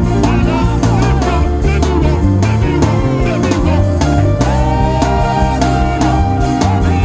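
Live church band playing upbeat gospel worship music with a steady driving beat: drums and a strong bass line under a melodic lead.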